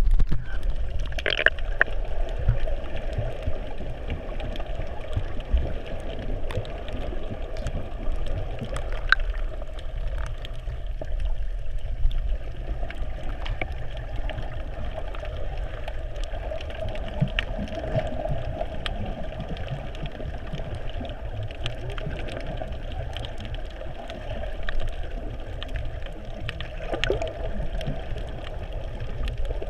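Muffled underwater sound heard through a submerged GoPro's waterproof housing: a steady low rumble with scattered clicks and knocks.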